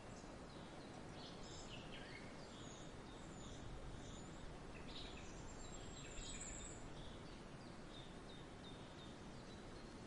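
Faint forest ambience: small birds chirping and calling, with short high notes scattered throughout and a sharper one a little after six seconds, over a steady low background noise.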